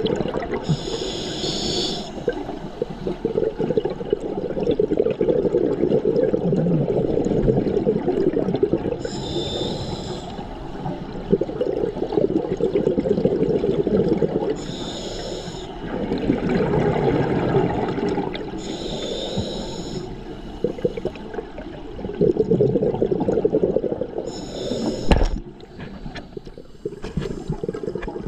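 Scuba diver breathing through a regulator underwater: five inhalations, each a hiss of about a second, every four to eight seconds, with long bubbling exhalations between them. A single sharp knock comes near the end.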